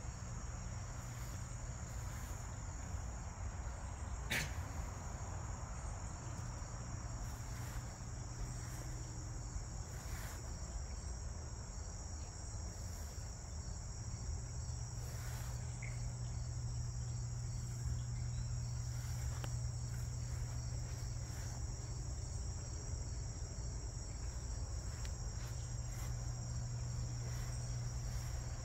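Crickets trilling in a steady, continuous high-pitched chorus, over a steady low hum. A single click about four seconds in.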